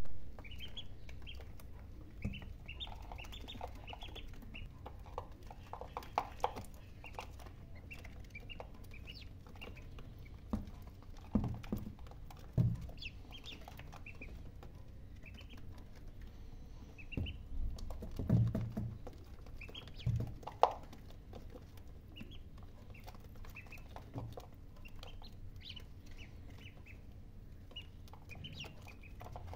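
A brood of day-old ducklings peeping: many short, high chirps in scattered clusters, with a few thumps and taps among them.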